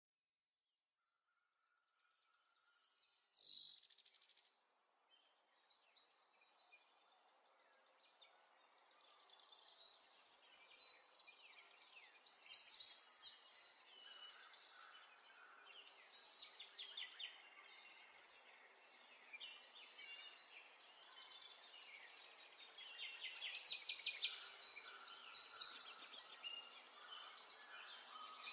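Small birds chirping and trilling in quick, high bursts. The calls start about two seconds in and grow busier and louder toward the end.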